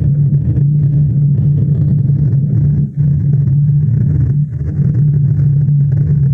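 A loud, steady low-pitched drone holding one constant pitch, dipping briefly about three seconds in.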